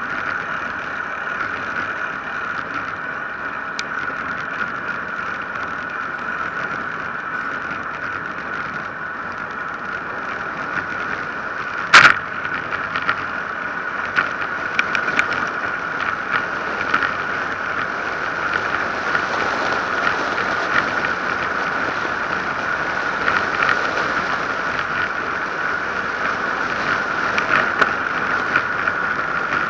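Wind and tyre noise of a road bicycle coasting downhill at speed, picked up by an action camera's microphone, with a steady high whir and scattered small rattles from the road surface. One sharp knock about twelve seconds in, and the rush grows a little louder in the second half.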